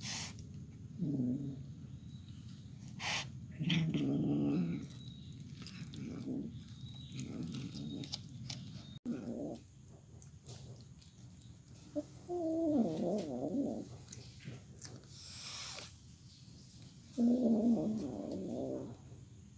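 Domestic cat growling in low, wavering spells of about a second, seven or so times, while it chews on a rodent it has killed: the possessive growl of a cat guarding its prey. A few sharp clicks fall between the growls.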